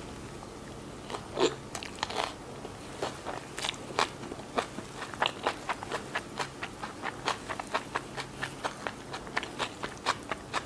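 Close-up chewing of a Vietnamese fresh spring roll in rice paper: a steady run of short crunches and wet mouth clicks, about two or three a second, with the loudest bite-crunch about a second and a half in.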